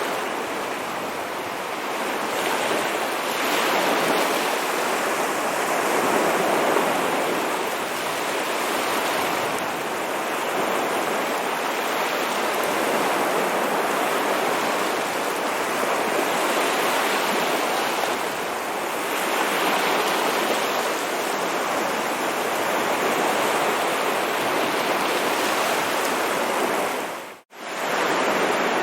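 Ocean waves breaking and washing on a shore, a continuous rush of surf that swells and eases every few seconds. The sound cuts out for a split second near the end, then resumes.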